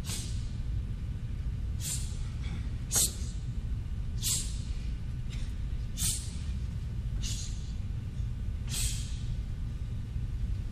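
Sharp hissing breaths forced out through the teeth, the ITF Taekwon-Do exhalation that marks each technique of a pattern, about seven of them at irregular intervals of one to two seconds. Under them runs a steady low hum.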